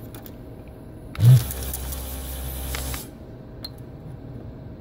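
Vacuum pump of a Pace SOLDR-X-Tractor desoldering station switching on about a second in with a thump, then running for about two seconds with a loud hiss of suction over a low hum before cutting off. The hot extractor tip is drawing molten solder out of a through-hole socket pin.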